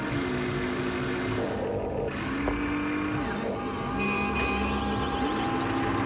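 Electric motors of a Huina radio-controlled construction model whining as they run. Their pitch holds, then glides up or down to a new level every second or so, as the controls change speed.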